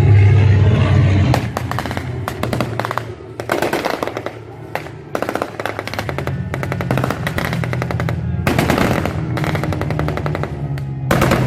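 Repeated bursts of rapid machine-gun fire, each a quick string of sharp shots, over a steady low drone.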